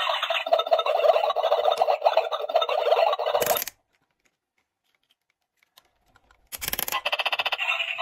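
Electronic crackling, sizzle-like frying sound from a toy kitchen stove, played through a small tinny speaker. It cuts off suddenly a little over halfway through, leaving a pause of about three seconds. A short, fuller crackle comes before the frying sound starts again near the end.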